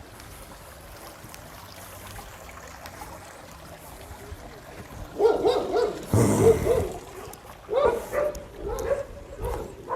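Dogs barking and yelping in a run of short calls that begin about five seconds in, after a few seconds of faint background.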